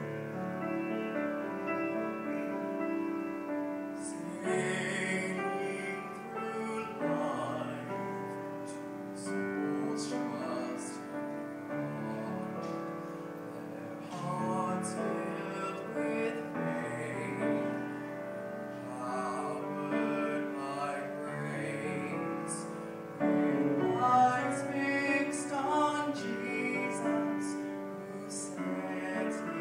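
Grand piano playing a slow accompaniment, joined about four seconds in by a man singing a ballad into a handheld microphone.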